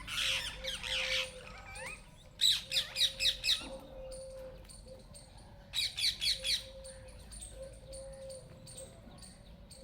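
Parrot calling: a gliding, squawky call at the start, then a run of about five quick chirps a little over two seconds in and another run of about four about six seconds in.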